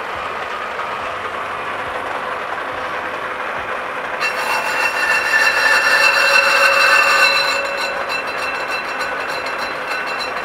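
Colchester lathe running with a Land Rover Series III brake drum spinning in its four-jaw chuck. About four seconds in, a louder, higher ringing whine joins for roughly three seconds as the cutter is touched off against the drum and starts to cut. Then it settles back to the plain running sound.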